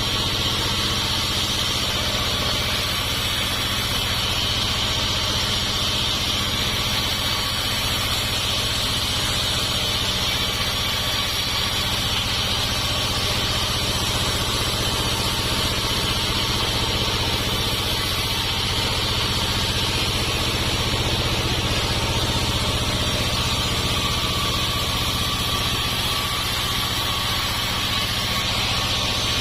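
Homemade sawmill running steadily: its engine and saw hum at a constant pitch, with no breaks or changes.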